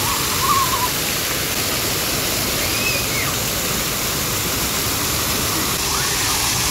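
Splash-pad fountain jets spraying and an artificial rock waterfall cascading, a steady rush of falling and splashing water.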